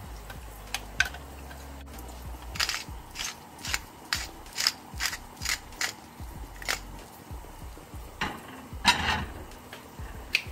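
A metal spoon stirring tomato sauce in a stainless steel saucepan, clinking and scraping against the pan in a quick run of strokes, about three a second, with a louder scrape near the end.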